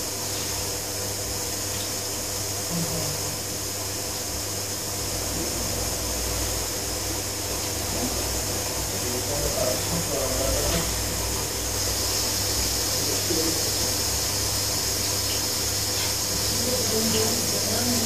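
Old front-loading washing machine running through its wash, a steady motor hum with water swishing in the drum, growing slightly louder toward the end.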